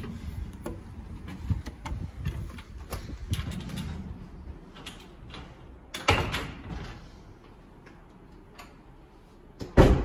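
A front door being opened and shut: handle clicks and knocks, a louder bang about six seconds in, and a sharp knock near the end.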